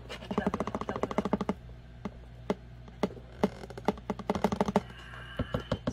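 A kitten scratching and pawing at the cardboard inside a coffee-mix box, making quick runs of dry clicks and scrapes. There is a fast burst about a second long near the start, single taps, and another shorter burst past the middle.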